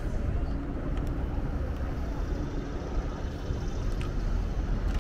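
Steady low outdoor rumble with no distinct event, and a faint steady hum running through it.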